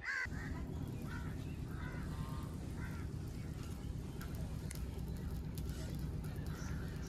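Birds calling now and then over a steady low rumble that sets in abruptly at the start.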